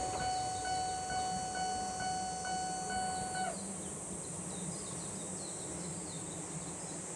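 Japanese level-crossing warning alarm ringing at about two strikes a second, then cutting off about three and a half seconds in as the crossing clears after the train. Insects chirp over a steady high hiss, with a faint low rumble underneath.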